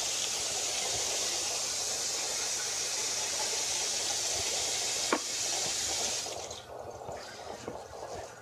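Water pouring steadily from a plastic measuring cup into a bowl of cooked rice mix, stopping about six seconds in, then a wooden spoon stirring the damp rice with soft intermittent scraping. A single knock sounds just after five seconds.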